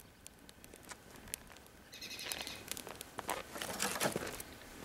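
Small wood fire of sticks, twigs and pine cones burning in a rocket stove, crackling with scattered sharp snaps and pops. From about two seconds in there is a louder, denser stretch of rustling and crackling.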